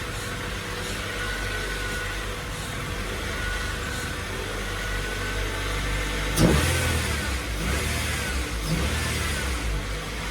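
Car engine idling steadily, with a sudden brief rev about six seconds in.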